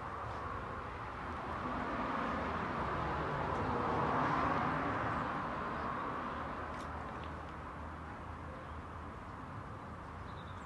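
A vehicle passing by, its noise swelling to a peak about four seconds in and then fading away, over a low steady hum.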